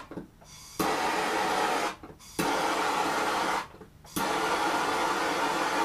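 Bernzomatic propane hand torch hissing in three bursts as it is fired, shut off and fired again, each burst opening with a sharp click. It is being swept over wet epoxy glaze coat to pop the bubbles.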